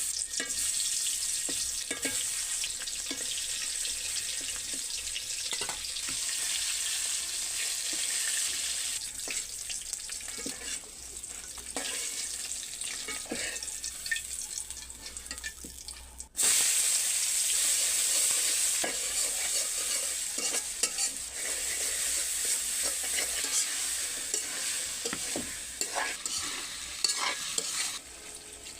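Food sizzling as it fries in a pan, with a utensil stirring and scraping against the pan in scattered clicks. The sizzle breaks off suddenly about halfway through and comes back louder.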